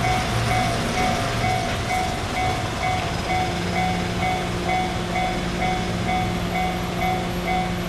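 Japanese level-crossing warning bell ringing in an even on-off pattern, about two rings a second, over the running noise of an E351 series electric train. About three seconds in, a steady low hum joins.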